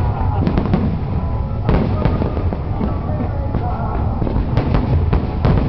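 Aerial fireworks going off: a continuous low rumble of distant shell bursts, broken by sharp cracking reports about half a second in, again near two seconds, and in a quick cluster near the end, with music playing underneath.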